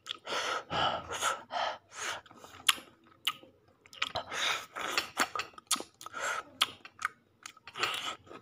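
A child chewing and smacking while eating chicken, in quick irregular bursts with a few sharp clicks.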